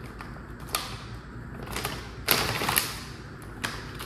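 Kitchen handling noises as smoothie ingredients and containers are picked up and set down: a few separate clicks and knocks, the loudest a brief clatter a little past halfway.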